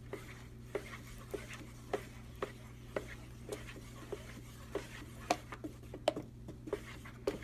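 Wooden stir stick mixing thin paint and fabric medium in a plastic bucket, with irregular light taps about twice a second as the stick strikes the bucket. A low steady hum runs underneath.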